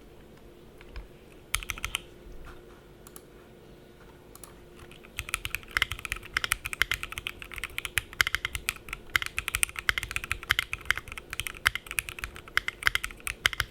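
Typing on an Ajazz FirstBlood B67 mechanical keyboard with Kailh switches, MDA keycaps, a solid acrylic case and a polycarbonate plate. A few scattered keystrokes come about two seconds in, then a pause, then steady fast typing from about five seconds on.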